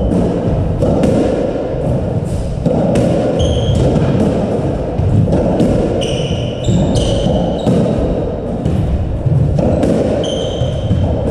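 A squash rally: the ball cracking off rackets and the walls at irregular intervals, with trainers squeaking briefly on the wooden court floor several times.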